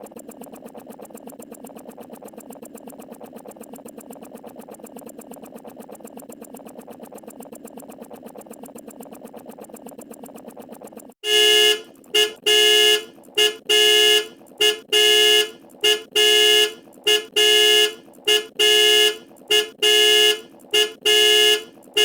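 A steady, rapid ticking buzz, then about eleven seconds in a loud horn-like alarm starts, sounding in blasts about once a second: a countdown timer's alarm going off at zero.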